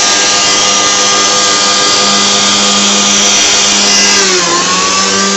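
Homemade hovercraft's motor-driven lift fan running steadily, a high whine over rushing air as it holds the craft up on its air cushion. A little after four seconds in the whine briefly sags in pitch and then climbs back to speed.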